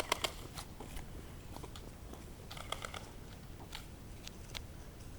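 Scattered faint sharp clicks and ticks, a small cluster of them about two and a half seconds in.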